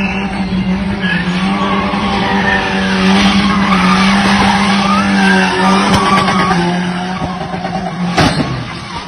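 Car engine held at steady high revs while tyres squeal in a wavering way as the car slides on a wet road. About eight seconds in there is a single sharp bang, and the engine note drops after it.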